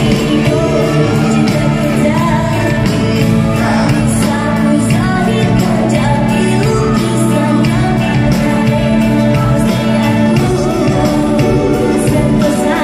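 Live band playing a song with a singer's voice over it and a steady drum beat, heard loud and full in a large concert hall.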